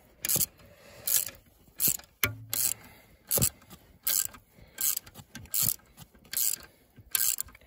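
Socket ratchet clicking in short, evenly paced strokes, about one every three-quarters of a second, as it tightens the bolt that draws an ABS wheel-speed sensor toward its tone ring.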